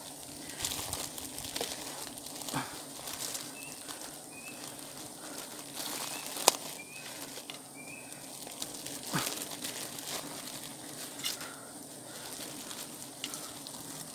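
Plastic bag and twigs rustling and crackling in irregular bursts, with a sharp snap about six and a half seconds in, while a small wild honeybee nest is bagged in the branches. Underneath runs a steady low hum of bees, and a few short bird chirps come through.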